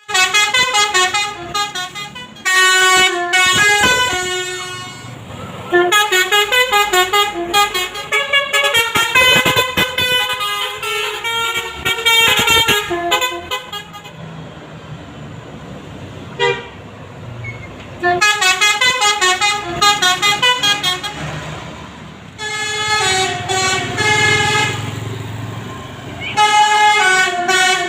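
Basuri telolet multi-tone bus air horn playing fast melodic runs of stepped notes in several loud bursts, with a few seconds' pause midway.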